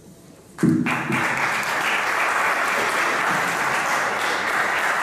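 Audience applauding, breaking out suddenly just under a second in and carrying on steadily.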